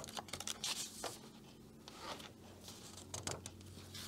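Paper pages of a coloring book turned and smoothed flat by hand: a series of short rustles and slides of paper, with a quieter stretch in the middle.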